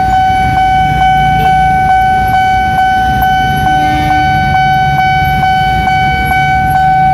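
Railway level crossing warning alarm sounding: a loud, steady electronic tone that does not waver, with a regular ticking a little over twice a second. Idling motorcycle and car engines hum underneath.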